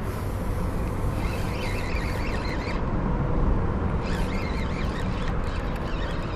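Spinning reel being cranked steadily to retrieve a lure, under a steady low rumble.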